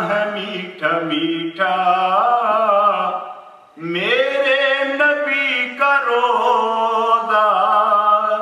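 A man's voice reciting a naat, an Urdu devotional poem, sung unaccompanied in long melodic phrases with wavering held notes and a short pause for breath partway through.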